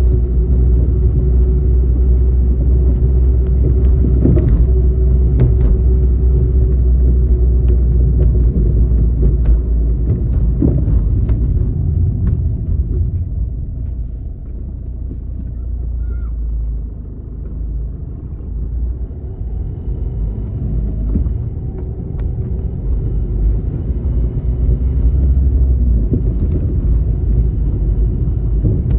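A car driving on a city road: a steady low road-and-engine rumble with a faint hum. It grows quieter for several seconds around the middle, then builds up again.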